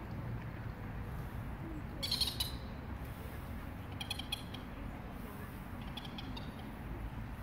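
Birds calling outdoors: three short high chirping bursts about two seconds apart, over a steady low background rumble.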